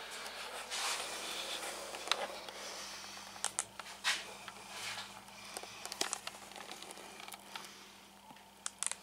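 Faint rustling and scattered small clicks from a person moving about and handling a camera inside a small plywood cabin, over a faint steady hum.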